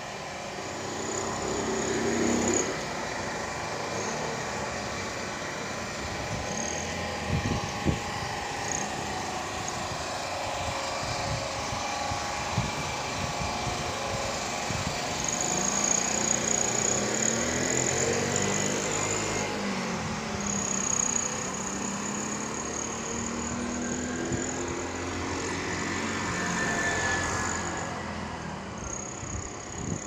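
A small vehicle engine running while under way, its pitch rising and falling as it speeds up and eases off, over steady road noise, with an on-and-off high whine and a few light knocks.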